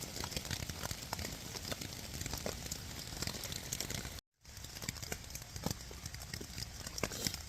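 Rain falling on a Lanshan 1 tent: a steady hiss of rain with many small, irregular taps of drops hitting the tent fabric. The sound cuts out briefly about four seconds in.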